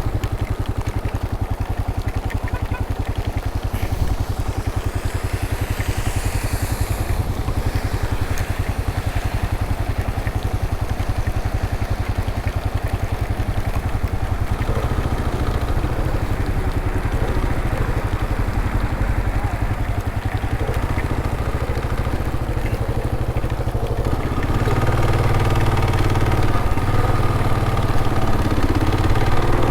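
Motorcycle engine running steadily while the bike is ridden, getting louder near the end.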